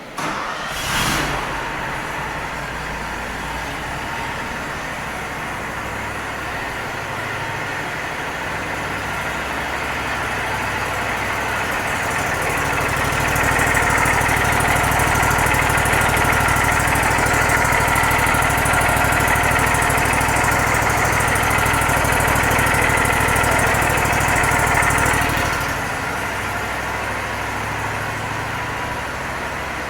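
An engine running steadily. It grows louder over several seconds to a higher, harder-working level, holds there for about twelve seconds, then drops back near the end.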